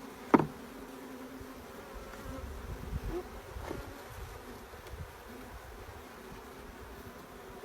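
Honeybees buzzing around an opened nuc hive: a steady hum. A single sharp knock about half a second in.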